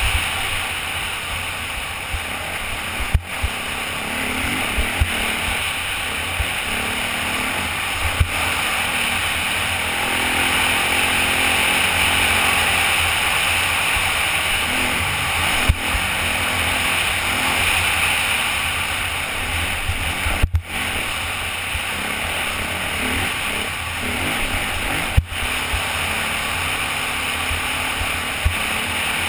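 Off-road motorcycle riding at speed on a dirt trail, heard through a helmet-mounted camera: the engine runs under heavy wind rush, with a few sharp knocks.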